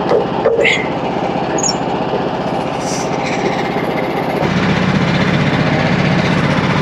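Engine running steadily, with a few knocks near the start; about four and a half seconds in the engine note turns louder and deeper and holds there.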